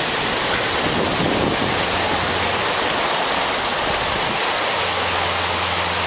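Surf breaking and washing up a sandy beach in a steady rush, with wind buffeting the microphone. A low steady hum comes in near the end.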